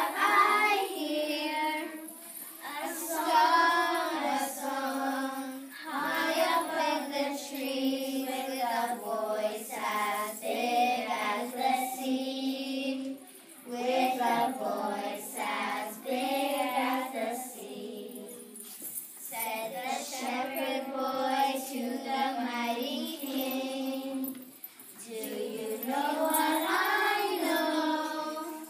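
A group of children singing a song together, phrase by phrase, with short breaks between lines.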